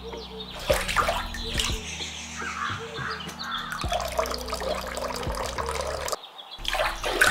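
Water trickling as it is poured from a small glass jar into a miniature clay bowl, with background music.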